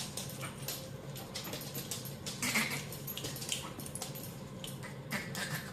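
A dog moving close by, making quick irregular scratching and rustling noises, several a second, over a faint steady low hum.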